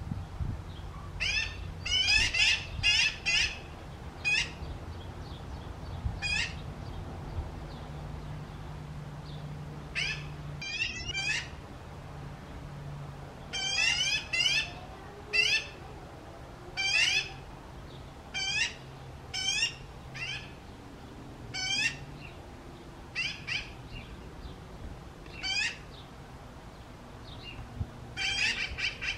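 Magpie chick calling: short, repeated calls, often in quick runs of two to four, with pauses of a second or more between runs.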